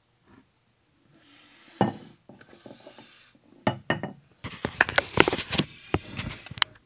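Knocking and clattering of hard objects being handled: a few separate knocks, then a dense run of clicks and clatter from about halfway on.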